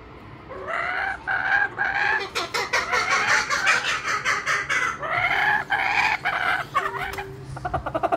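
Laughing kookaburra giving its laughing call: a few spaced notes about half a second in that speed up into a fast, rapid cackle, then tail off about seven seconds in.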